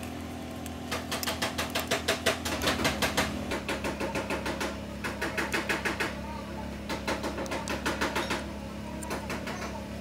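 Rapid mechanical clicking from a car seat belt retractor mechanism being worked by hand, coming in runs of a second or two with short breaks. A steady low hum runs underneath.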